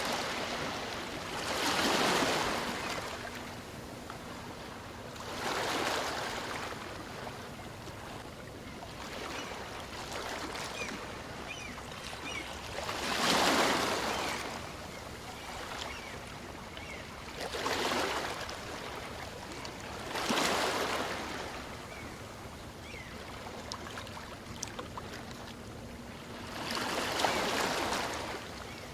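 Small waves on a calm sea breaking and washing up the shore, each wave a surge of surf that swells and fades over a second or two, about six in half a minute, over a steady low wash of water.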